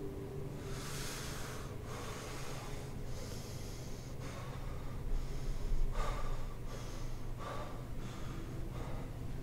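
A man breathing hard in a series of harsh, snorting breaths and gasps, irregularly spaced about a second apart, over a low steady hum.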